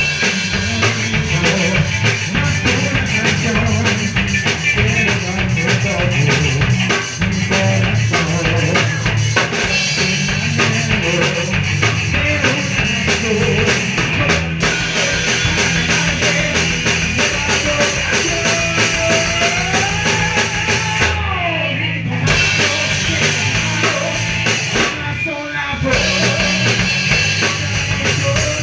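Ska punk band playing through a song in rehearsal, with the drum kit and bass drum out front. The cymbals drop out briefly twice, about three-quarters of the way through.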